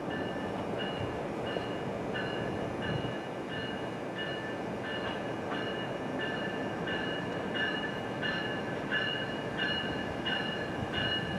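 An approaching train's bell rings steadily, about one and a half strokes a second, and grows louder over the low rumble of the oncoming train.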